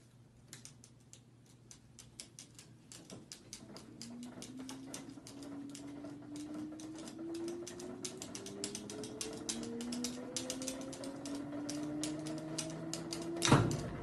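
A caique parrot's claws and beak clicking and tapping on the glass lid of a top-loading washing machine, several irregular taps a second. Under them the washer's motor makes a low hum that rises slowly in pitch as the drum speeds up. A single loud knock comes near the end.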